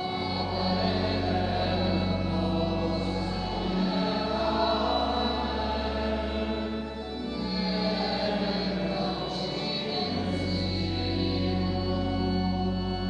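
Choir singing a slow sacred chant in long held chords over a sustained low accompaniment whose bass note changes a few times.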